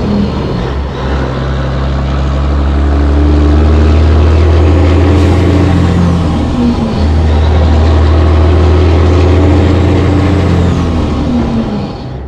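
Caterpillar 3406B diesel of a Peterbilt 362 cabover truck pulling hard through the gears, heard at the exhaust stacks: the engine note climbs, then drops at each upshift, several times.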